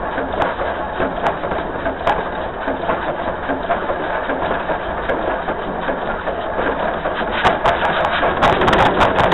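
Dollywood's steam locomotive No. 192 running along the narrow-gauge track, heard from its front pilot: a steady rumble of wheels on rail with irregular sharp clicks and rattles, which come thicker and louder near the end.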